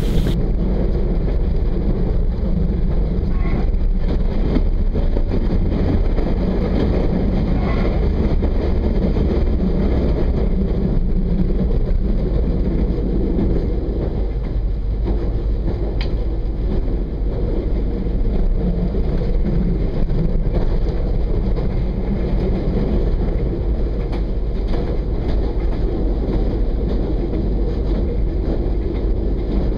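Regional train running along the line, heard from on board: a steady low rumble of wheels on rail and the moving train, with a faint click about halfway through.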